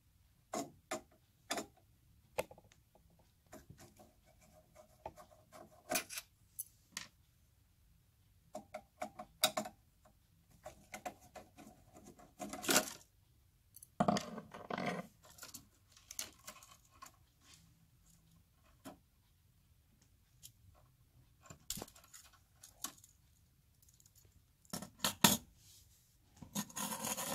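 A screwdriver working small screws out of a metal cover plate on an inverter charger: scattered light clicks and short squeaky scrapes, with small metallic taps as the loose screws are set down, and a denser clatter near the end.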